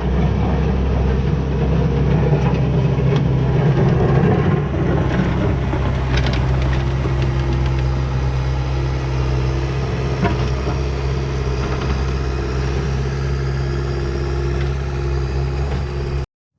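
Skid steer engine running steadily, with a few brief clicks; the sound cuts off abruptly near the end.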